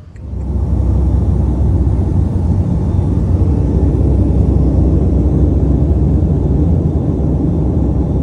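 Airliner cabin noise in flight: a loud, steady low rumble that starts abruptly and holds without change.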